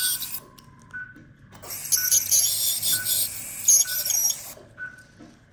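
Ultrasonic dental scaler hissing with its water spray as it scales heavy tartar off a dog's teeth, in two stretches with a pause near the start. An anaesthetic monitor beeps steadily about once a second.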